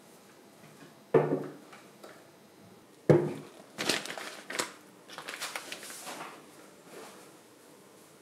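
Two glass jars set down one after the other on a wooden table, each a sharp knock with a short ring, about two seconds apart. Then plastic food packets crinkle as they are laid beside them.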